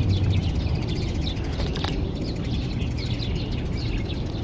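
Birds chirping in many short, quickly repeated notes, over a steady low rumble, with one sharp click just under two seconds in.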